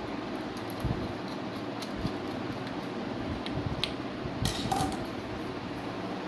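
Scattered light clicks and taps of desktop computer parts being handled, with a short burst of clicking and scraping about four and a half seconds in, over a steady background hiss.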